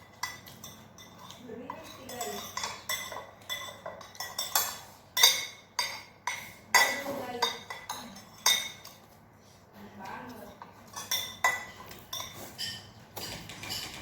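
Eating utensils clinking against bowls: a long run of short, sharp clinks, the loudest about five and seven seconds in.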